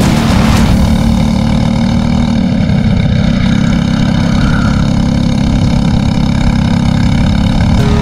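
Briggs & Stratton 206 single-cylinder four-stroke kart engine running loud and at a steady pitch, with a heavy low rumble.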